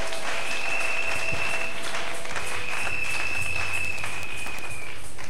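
Crowd applauding with quick clapping, over which a high, steady whistle-like tone is held twice for a second or two each time.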